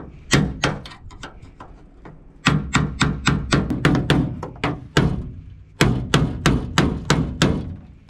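Claw hammer striking a flathead screwdriver held against the aluminum bench-seat brackets, driving rivets out. Two single blows, then fast runs of ringing metal strikes about four or five a second, pausing briefly in the middle.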